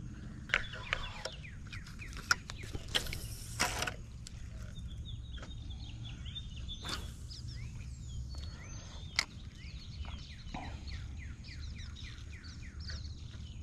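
Birds chirping in many quick, repeated downward-sliding notes over a steady low rumble, with a few sharp clicks and a brief hiss about three seconds in.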